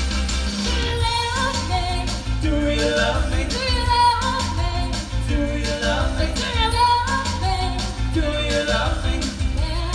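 Live performance of a Motown song: singers with vibrato over a steady, heavy bass accompaniment.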